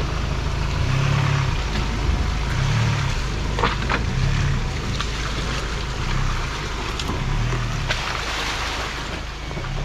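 Ford Ranger Wildtrak pickup on the move: a steady low rumble of engine and driving noise that swells and eases every second or two, with a few short sharp knocks.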